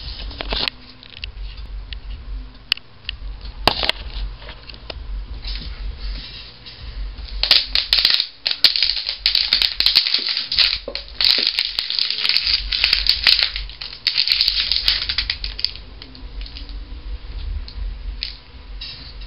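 Plastic water bottle being twisted and crushed by hand, the plastic crackling and crinkling in quick clicks. The clicks come thickest in a long stretch through the middle and thin out toward the end. This is the twisting that squeezes the air in the bottle before the cap is shot off.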